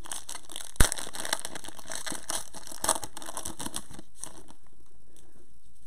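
Foil trading-card pack wrapper of a Panini Prizm basketball retail pack being torn open and crinkled by hand, with a sharp snap about a second in. The crackling goes on for about four seconds and then fades.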